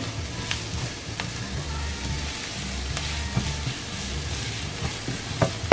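Chopped onions sizzling in hot oil in a nonstick pan as they are stirred, with a few sharp knocks of a wooden spatula against the pan.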